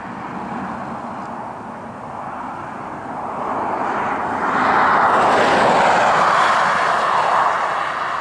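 A pickup truck passing close on the highway: tyre and road noise swells about four seconds in, holds loud for a few seconds and fades near the end.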